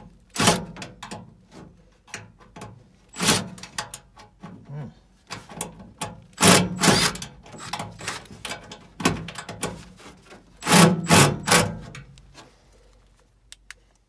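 Irregular knocks, scrapes and rubbing as hands and a cordless drill/driver work against the sheet-metal cabinet of a gas furnace, in about six louder clusters that die away near the end. No motor runs.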